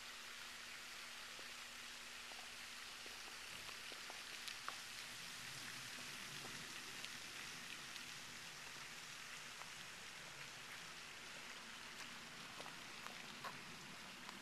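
Faint, steady rain-like hiss of a pond fountain's spray falling back onto the water, with scattered light ticks.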